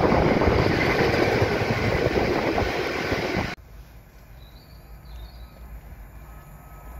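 Loaded freight train of aggregate wagons rolling past, a steady rumble and clatter of wagon wheels on the rails. It cuts off abruptly about three and a half seconds in, leaving only a faint low rumble.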